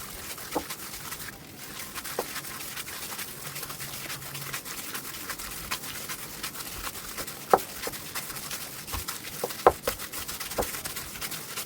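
Kitchen preparation sounds: a steady hiss with scattered light clicks and knocks. There are two sharper knocks, about halfway through and near the end.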